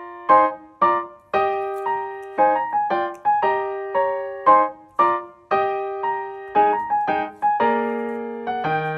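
Background piano music: a simple melody of single struck notes, each ringing and fading, played at an easy pace.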